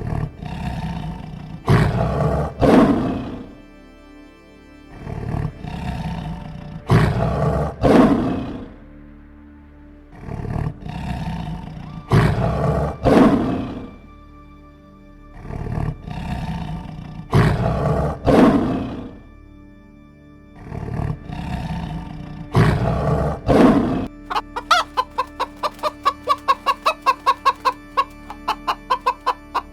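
A large animal roaring repeatedly, each roar about three seconds long with two loud swells, about every five seconds, over soft background music. About four-fifths of the way through, the roars stop and rapid clucking begins, about four clucks a second.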